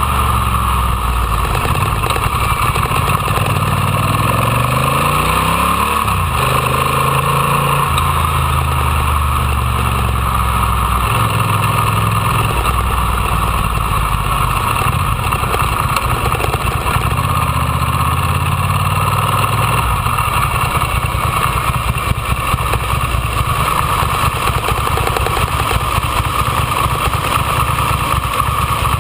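Ducati Monster 800's air-cooled L-twin engine running under way in traffic, revving up about four seconds in and dropping sharply at a gear change about two seconds later, then pulling on steadily with road and wind noise over it.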